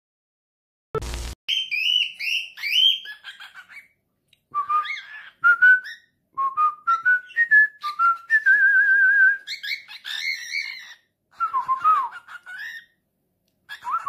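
A bird whistling a long string of gliding notes and chirps, with a run of notes stepping upward and a fast warbling trill near the middle. A short thump is heard about a second in.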